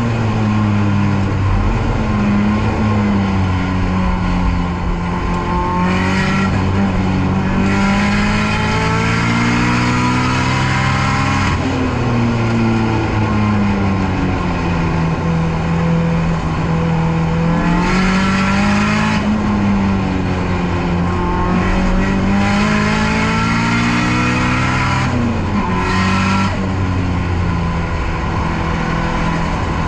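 Nissan S13's SR20DET turbocharged four-cylinder engine driven hard on a race circuit, its note rising and falling repeatedly as the car accelerates and slows, with sudden pitch changes about eleven seconds in and again near the end.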